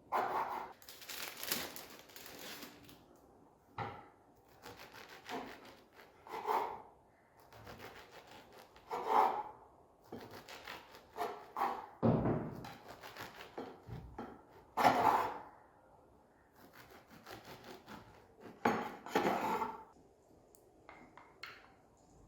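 Kitchen prep sounds: a series of irregular scraping and rubbing strokes against wood, several seconds apart.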